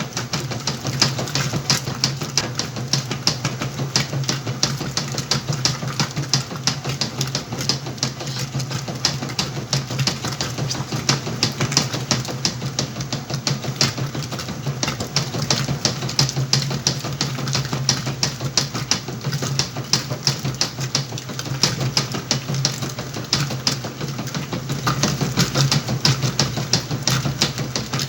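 Whirlpool washing machine running a wash cycle: a steady motor hum under a rapid, continuous clatter.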